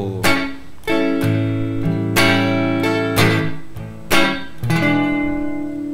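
Guitar playing a 12-bar blues in A, back on the I chord (A7): a strummed chord about once a second, each left to ring, with the low bass note moving between strums.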